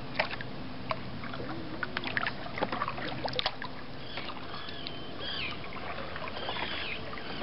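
Water splashing and dripping against a kayak hull as it moves, with sharp clicks and splashes over the first few seconds. In the second half, birds chirp repeatedly in short high calls.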